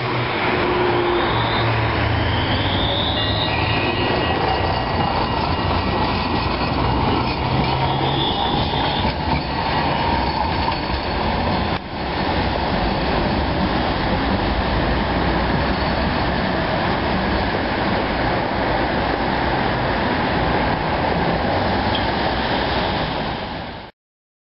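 Alstom Citadis low-floor tram pulling away on street track: the whine of its electric traction motors rises as it speeds up, over rumbling wheel-on-rail noise, with steady high wheel squeal for a few seconds. The sound breaks off briefly about halfway through, then a steady tram rolling noise goes on.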